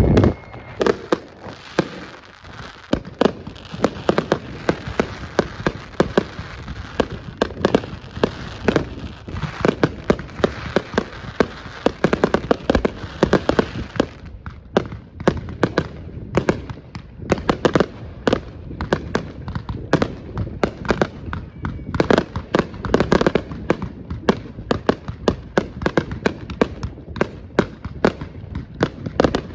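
Many fireworks and firecrackers going off at once: a dense, continuous barrage of overlapping sharp bangs and crackles, several a second.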